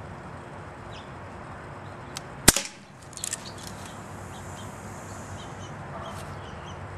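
A single BB gun shot hitting a shaken soda can, a sharp crack about two and a half seconds in, followed by a few light clicks. Then a faint hiss for about two seconds as soda sprays from the punctured can.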